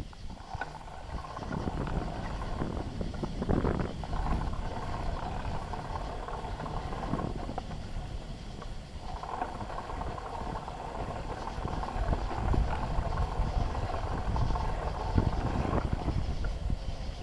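Bicycle being ridden, heard from a handlebar-mounted camera: a steady low rumble of tyres and wind with scattered rattles and knocks from the bike.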